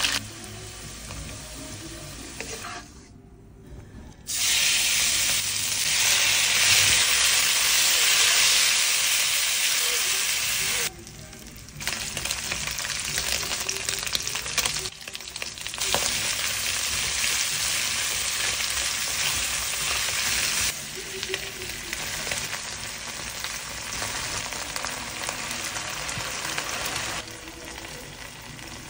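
Food sizzling in hot oil in a stainless steel wok: potato wedges frying near the start, and sliced beef and onions stir-frying near the end. The sizzle jumps abruptly louder or softer several times.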